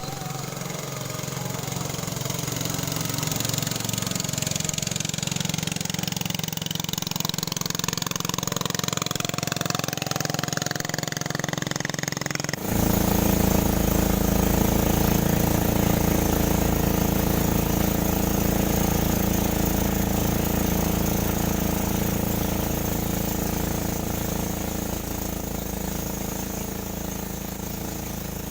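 An engine running. For the first twelve seconds or so its pitch rises steadily as it speeds up; then, after an abrupt cut, it runs louder and at a steady speed.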